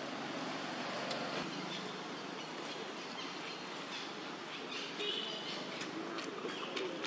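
Steady outdoor background noise with a few short, high chirps between about four and six seconds in.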